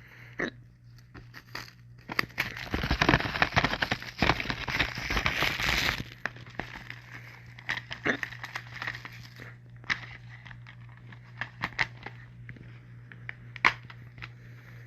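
Plastic shrink wrap being torn and crinkled off a DVD case: a dense crackling stretch of a few seconds, then scattered crinkles and sharp plastic clicks.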